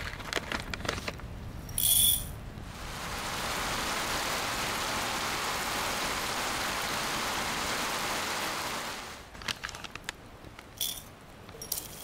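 Plastic zip bag rustling as dried tea is poured into a glass jar, with a short loud rustle about two seconds in. Then rain falls steadily on the lake as a constant hiss for about six seconds. Near the end come light clicks and rustles of a metal measuring spoon tipping dried spice into the glass jar.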